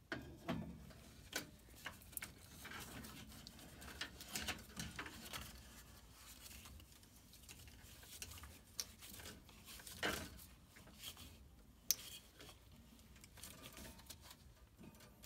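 Faint handling noise from a Honeywell intermittent-pilot gas valve being fitted onto its threaded gas pipe by gloved hands: scattered light metal clicks and glove rustling, with one sharper click late on.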